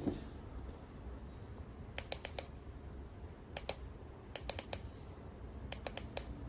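Sharp light clicks in four quick clusters of two to four clicks each, over a faint low hum.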